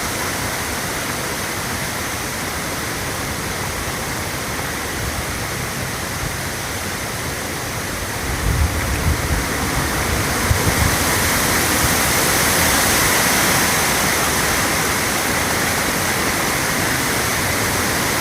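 Steady rushing of flowing water, with a few low rumbling buffets on the microphone about halfway through.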